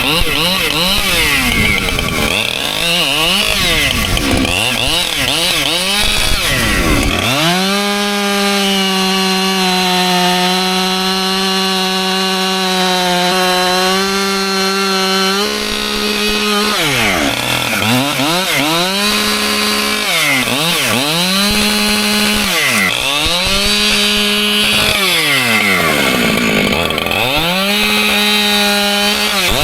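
Husqvarna two-stroke chainsaw cutting white oak logs at high revs. Its engine note holds high and steady for several seconds, then repeatedly drops and climbs back as the throttle and load change.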